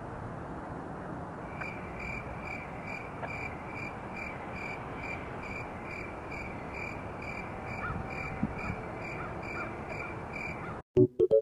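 Frog peeping outdoors: a high, clear peep repeated evenly about two or three times a second, beginning about a second and a half in over a steady background hiss. The recording cuts off abruptly near the end.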